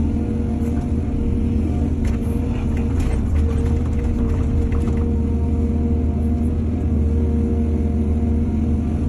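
Excavator's diesel engine running steadily with a deep rumble, with faint clatter between about two and five seconds in.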